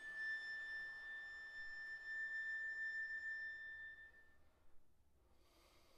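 Tuba held on a single high, thin, pure-sounding tone, an extended-technique sound rather than a normal low tuba note, sustained steadily and stopping about four and a half seconds in.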